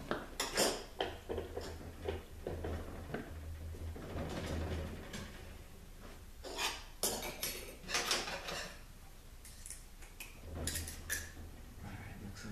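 Steel internal parts of an Aisin AW450-43LE automatic transmission clinking and clattering as they are handled during teardown: washers and planetary gear-set pieces knocking against each other and the bench. The clinks come in irregular clusters.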